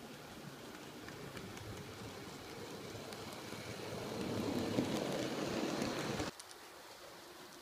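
H0-scale model diesel locomotive and tank wagons rolling along the track: a rumble of wheels on rail with light clicks, growing louder as the train comes close. It cuts off abruptly about six seconds in.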